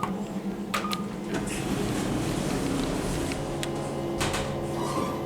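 KONE MonoSpace elevator in operation: a short button beep about a second in, over the steady mechanical hum of the car's doors and drive.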